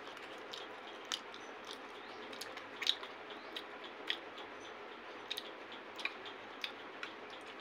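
Someone chewing a Nutella-dipped popcorn: faint, irregular crunching clicks.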